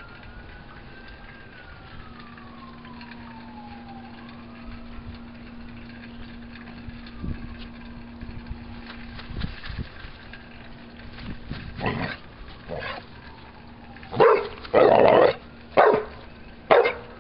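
Basset Hound–Pit Bull mix dog barking about five times in quick succession in the last few seconds, one bark drawn out longer than the rest. Earlier, a faint wailing tone slowly rises and then falls in pitch, like a siren.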